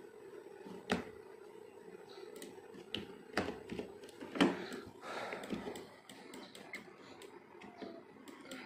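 Scattered single clicks of a computer mouse, a few seconds apart, over a faint steady hum.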